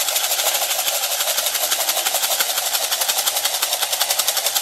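A small clear plastic bottle shaker with loose contents, shaken rapidly to make a loud, fast, even rattle.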